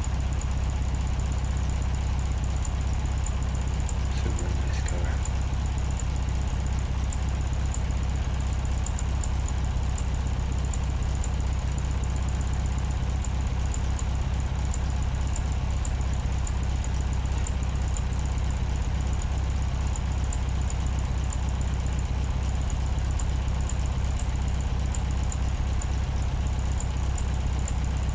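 A steady low hum with a faint high-pitched whine above it, unchanging throughout.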